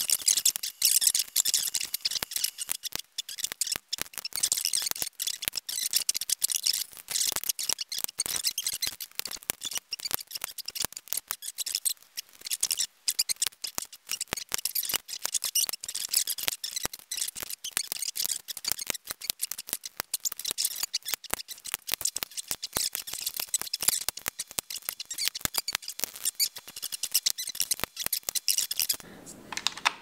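Rapid, almost continuous plastic clicking and snapping as keycaps are pressed back onto an original iMac keyboard's key switches. It stops about a second before the end.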